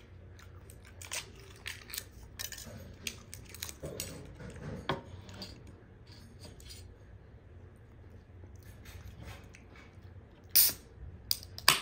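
Eating sounds: chewing and small wet clicks while biryani is eaten by hand, thick for the first half, then two short sharp clicks near the end.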